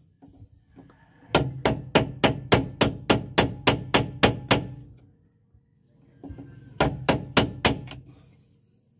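Sharp tool knocks on a seized, rusted bolt, about four a second: a run of a dozen or so, a pause, then about six more. The aim is to break the bolt's corrosion loose.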